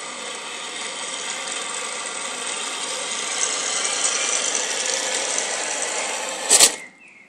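Henglong 1:16 Tiger I RC tank driving on asphalt: the whine and rattle of its small electric drive motors, gearboxes and tracks, getting louder as it comes closer. About six and a half seconds in, a short loud burst, after which the noise drops away.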